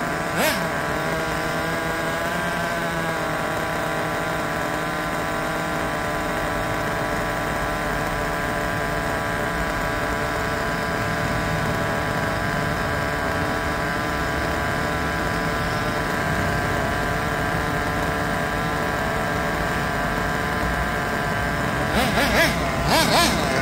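Small glow-fuel (nitro) engine of a 1/8-scale RC buggy idling steadily, with a few short, louder sounds near the end.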